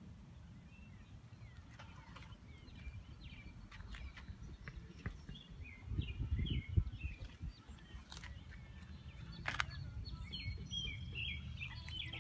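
Small birds chirping again and again over a steady low rumble, with a dull thump about six seconds in and a couple of sharp clicks a little later.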